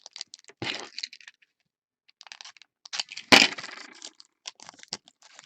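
Trading cards and card packs being handled on a table: scattered clicks, rustles and light taps, with one sharp snap a little over three seconds in.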